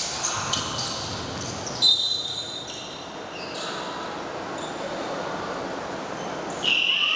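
Basketball game on a hardwood gym floor: the ball bouncing and sneakers squeaking, echoing in the large hall. A high-pitched squeal sounds about two seconds in, and a louder high steady tone starts near the end.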